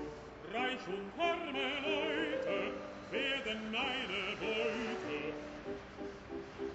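Music with operatic singing: a voice with a strong vibrato over held accompanying notes.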